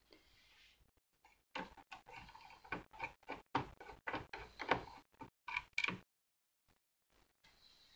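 Screwdriver turning a small screw out of the metal chassis of an Akai GX-747 reel-to-reel tape deck: a run of irregular small clicks and ticks, starting about a second and a half in and lasting about four seconds.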